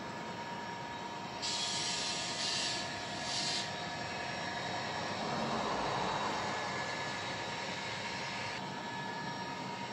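00 gauge model train running across the layout, a steady hum from its motor and wheels on the track. Two bursts of hiss come about a second and a half in and again about three seconds in, and the running noise swells about five to seven seconds in before settling.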